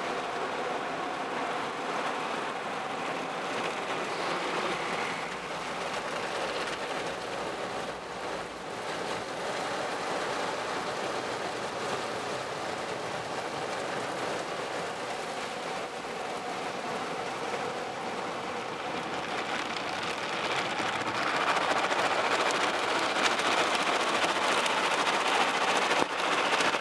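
Water jets spraying and drumming on a car's windshield and body in an automatic car wash, heard from inside the car, over a steady machine hum. The spray grows louder about three-quarters of the way through.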